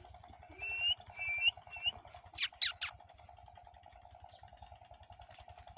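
Birds calling: a few short chirps, then three loud, sharp descending squawks about halfway through, over a steady pulsing hum.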